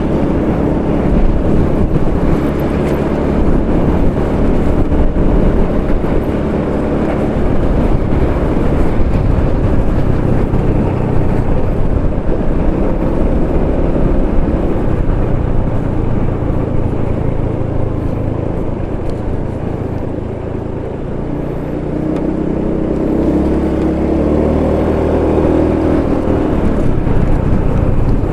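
Motorcycle engine running steadily under way, with a heavy low rumble, heard through a homemade action-camera microphone; the engine note rises and falls a few times with the throttle, notably about halfway through and again near the end.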